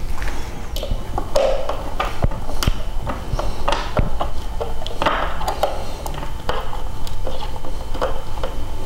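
Hand screwdriver turning small number 4 wood screws into plywood, tightening them through a plastic mounting tab. It makes scattered sharp clicks and short scraping grinds, starting and stopping as the screws are snugged down.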